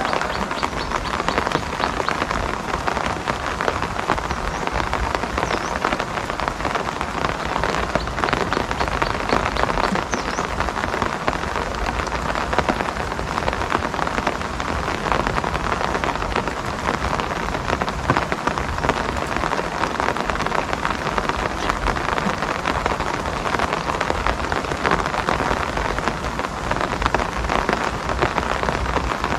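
Steady rain falling, a dense patter of countless drops hitting surfaces, even in level throughout.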